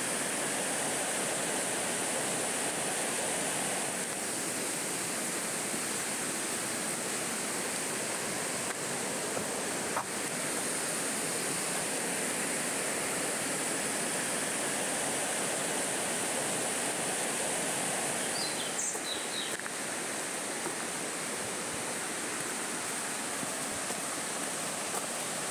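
Steady rushing of the Bode river flowing through its rocky gorge, with a few short high chirps around three quarters of the way through.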